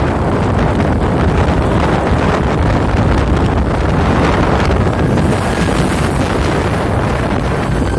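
Wind buffeting the microphone while travelling on the move, over the steady running noise of a vehicle on the road.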